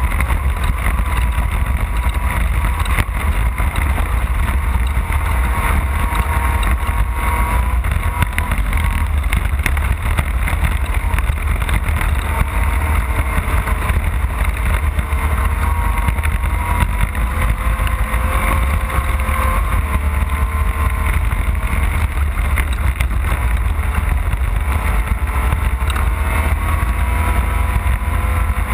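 Off-road race car's engine running hard at speed, its pitch rising and falling slightly, under a heavy low rumble from the drivetrain and terrain, with wind buffeting the microphone.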